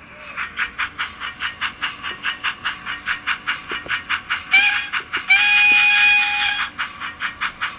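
SoundTraxx DCC sound decoder playing steam locomotive sound: steady chuffing at about five chuffs a second. About four and a half seconds in comes a short whistle toot, then a longer whistle blast of just over a second.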